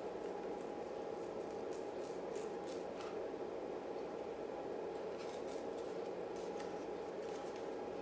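Scissors snipping and poking into a cardboard toilet paper roll to make a hole, small crisp snips in two runs, the first a second or two in and the second about five seconds in, over a steady low hum.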